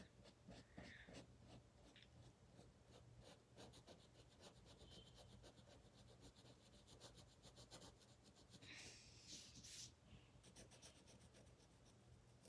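Faint felt-tip marker strokes on paper: quick, short scratchy back-and-forth strokes of coloring, with a brief louder rustle about three quarters of the way through.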